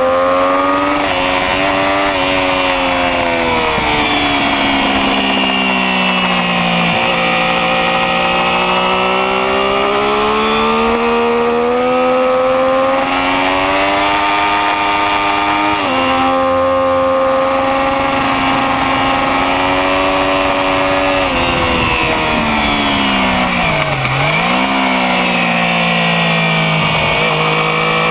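Motorcycle engine at track speed, its note falling and rising smoothly with the throttle through the corners, jumping in pitch at gear changes, and dipping low once before pulling back up. A steady rush of wind noise lies under it.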